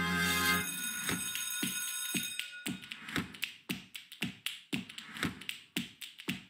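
Dance track during a sparse percussive break: a held chord cuts off early, then a steady run of sharp clicky beats, about four a second.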